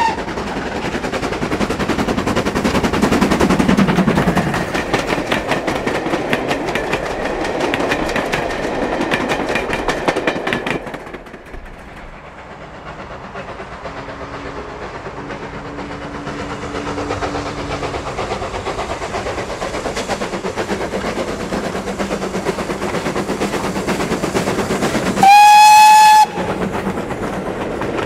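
GWR Hall-class 4-6-0 steam locomotive passing at speed with a goods train, its exhaust beats coming rapidly. After a cut, another steam train approaches and runs past with rail and wheel noise, and near the end its whistle sounds once, loud, for about a second.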